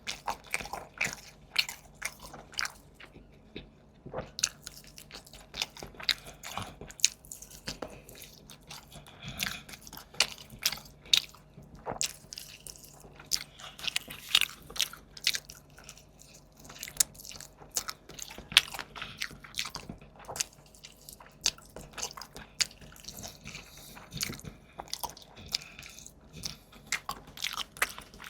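Close-miked eating: a person biting and chewing food with wet, crunchy mouth sounds, many small crackles and smacks several times a second.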